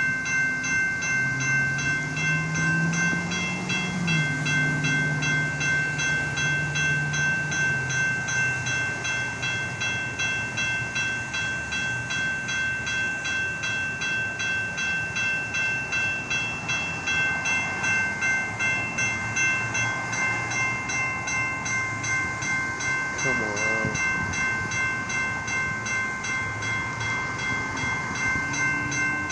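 Railroad crossing warning bell ringing steadily in rapid, evenly repeated strokes: the crossing is activated for an approaching light-rail train. A low hum runs under it for roughly the first eight seconds.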